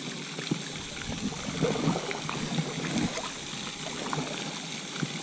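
Water splashing and sloshing around a kayak, in small irregular splashes that are heaviest about two seconds in.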